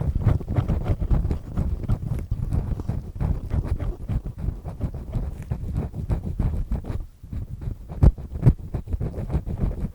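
Close-miked earpick with three black discs scraping and rubbing in a continuous rough, crackly grinding, with a few sharper clicks about eight seconds in.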